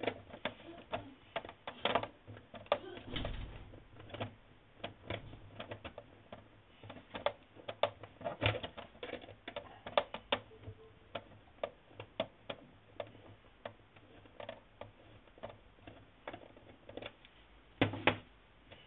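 Irregular small metallic clicks and ticks of a hex driver turning a small screw in an RC buggy's steering knuckle, held with needle-nose pliers, with a louder pair of clicks near the end.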